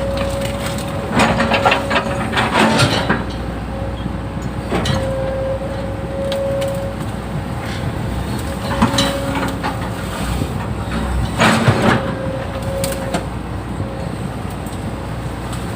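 Excavator running with a steady whine, with repeated bouts of cracking and crunching as the bucket digs into the ground.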